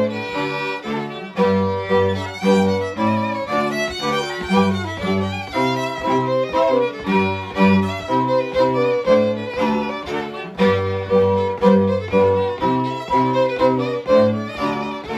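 Traditional Podhale highlander string band playing a lively tune: a lead fiddle carries the melody over a second fiddle and a cello-sized bass (basy), which bow a steady, driving rhythm of short repeated strokes.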